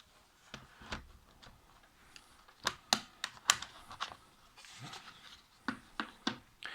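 A series of sharp plastic clicks and knocks from a Lenovo ThinkPad T440p laptop being handled as its battery and power supply are disconnected, the loudest a few quick clicks near the middle.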